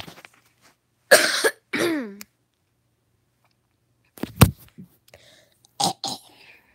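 A girl's harsh, cough-like vocal burst about a second in, then a short voiced sound that falls in pitch. About four seconds later comes a sharp knock from the phone being handled, followed by a few brief mouth sounds near the end.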